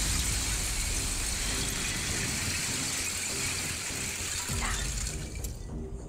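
Thin shards of shore ice being pushed up and breaking against each other, making a continuous high, glassy tinkling hiss. It cuts off about five seconds in.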